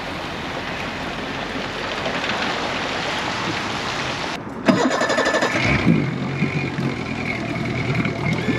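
A steady rushing noise of wind and water at the shore, then, about four and a half seconds in, a Parsun F60 four-stroke EFI outboard motor starts suddenly and settles into a steady idle.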